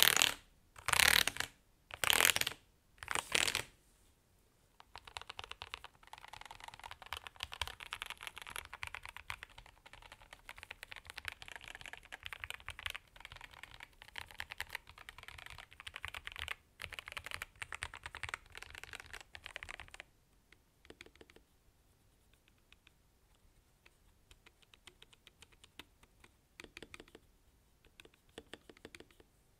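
Typing on a mechanical keyboard with Gateron Mint switches. It opens with four loud bursts of many keys at once, about a second apart. Then comes fast continuous typing until about twenty seconds in, and after that only a few separate keystrokes.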